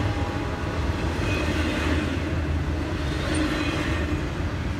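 Double-stack intermodal freight cars rolling past: a steady rumble of steel wheels on the rails.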